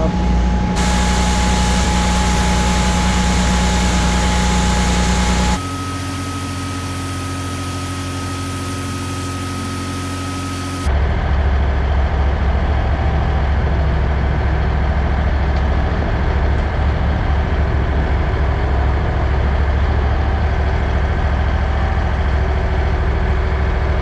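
Heavy diesel machinery running steadily, a low hum with a thin steady whine over it. About five and a half seconds in it drops quieter with a higher whine, and about eleven seconds in it jumps to a louder, deeper rumble.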